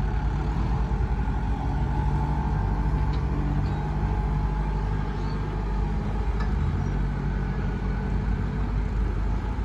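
Kubota tractor's diesel engine running steadily as it pulls a trolley loaded with wet soil through mud.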